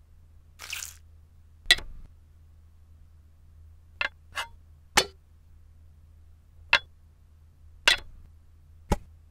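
A series of sharp clicks and light taps, about seven at irregular intervals, as aluminium cutter rings and plastic Lego bricks are set down in a round metal tin. A soft swish comes just before the first click.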